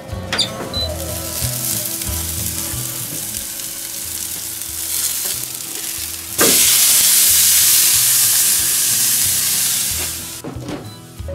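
Thick tomahawk rib-eye steak sizzling on the hot grate of a charcoal grill, with a short knock near the start as the grill lid is opened. About six seconds in the sizzle jumps suddenly much louder as the steak is turned over onto its unseared side, then dies away near the end.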